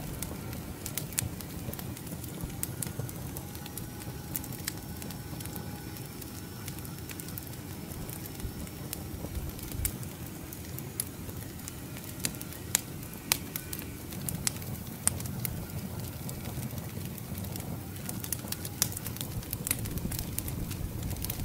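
Split firewood burning under a rotisserie, crackling with sharp pops scattered irregularly through, over a steady low rush.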